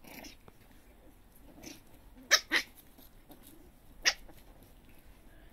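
Shih Tzu puppies yipping while they wrestle: two short, sharp yips in quick succession a little over two seconds in, and another about four seconds in.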